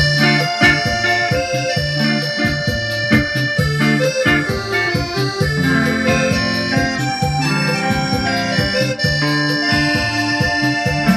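A live band plays instrumental music: a keyboard plays an accordion-like lead over electric guitar and a low line of notes, with a steady beat.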